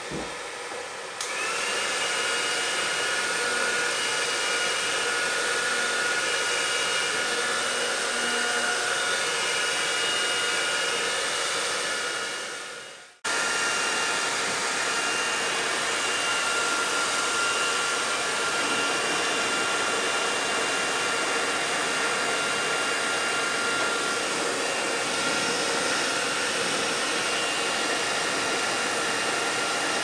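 Handheld hair dryer running steadily, a rushing blast of air with a faint motor whine, as it heats car window tint film to soften its glue. It gets a little louder about a second in, fades away near the middle and comes straight back in.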